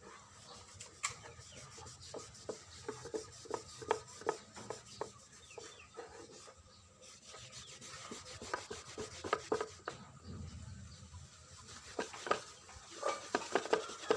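Hand-worked rubbing or scraping strokes on a workpiece, about two to three a second, in runs that pause for a few seconds near the middle and pick up again near the end.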